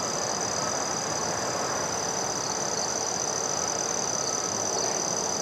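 Steady chorus of crickets, a continuous high-pitched trill that holds unchanged, over an even background rush.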